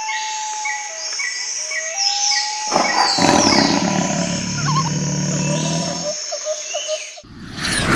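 Jungle sound-effect bed: birds calling with rising whistles and a repeated chirp. About three seconds in, a deep animal roar joins them and holds for about three seconds. Near the end the sound cuts out abruptly.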